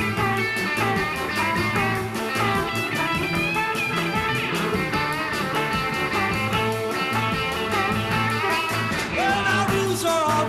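Blues-rock band playing an instrumental break: a bending lead line over a steady bass and drum beat.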